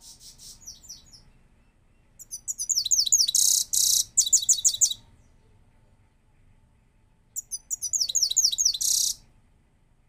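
Caged grey-headed goldfinch singing: a faint twitter at the start, then two loud phrases of rapid high trills, about two seconds in and again near the end, each with a harsh buzzy note.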